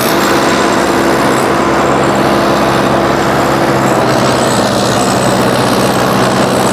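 Sonalika DI-55 tractor's diesel engine running hard under heavy load, steady and loud, as it drags an 8-foot rotavator in low second gear through deep sandy soil, the rotavator blades churning the earth.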